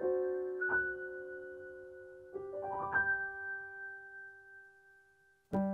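Background piano music: a few slow notes and a spread chord ring out and fade almost to silence, then a new, louder piano passage starts abruptly near the end.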